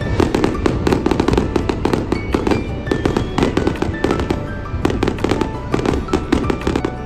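Aerial fireworks bursting and crackling in rapid succession, many bangs a second, with background music playing throughout.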